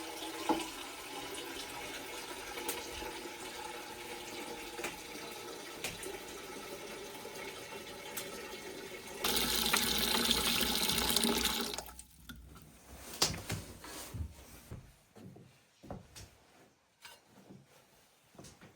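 Water running steadily, then flowing harder for about three seconds before it stops suddenly; a few light knocks follow.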